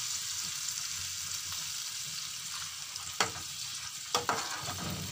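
Onion and tomato masala sizzling in a metal frying pan with half a cup of water just added, while a spatula stirs it, scraping against the pan a few times in the second half.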